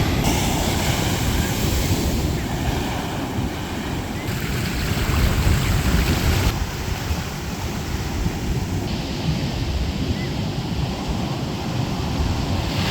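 Ocean surf washing onto a beach, with wind buffeting the microphone in a heavy low rumble. The sound shifts abruptly a few times.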